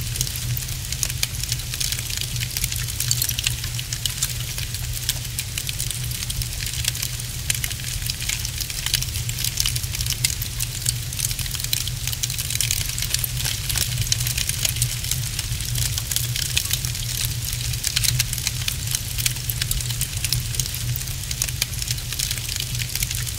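Wood fire crackling in a fireplace: a dense, steady run of small pops and snaps over a steady low rumble.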